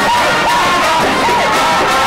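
Music playing with a crowd cheering and singing along.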